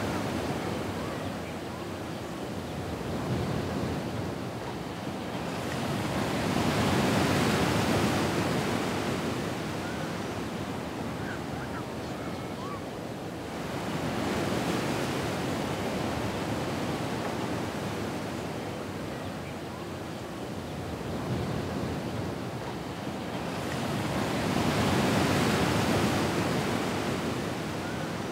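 Ocean surf: waves roll in and wash back in slow swells that rise and fall every several seconds.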